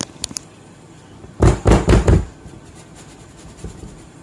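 A few light clicks, then about a second and a half in, four quick dull thumps: a glass baking dish full of cake batter knocked down on the counter to settle the batter and knock out air bubbles.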